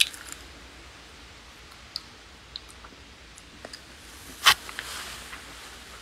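Phone handling noise: a few faint clicks and rustles on the phone's microphone, then a louder knock with a short rustle about four and a half seconds in as the phone is set down and propped up.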